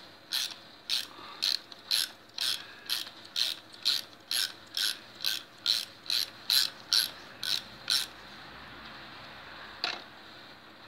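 Ratchet wrench with a 10 mm socket clicking about twice a second as it is worked back and forth to loosen a diesel glow plug in the cylinder head. The clicking stops about eight seconds in, with one more click near the end.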